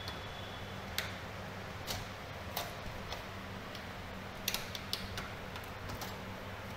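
Irregular clicks and light taps of power-supply cables and plastic connectors being handled and fitted inside an open desktop PC's metal case, over a steady low hum.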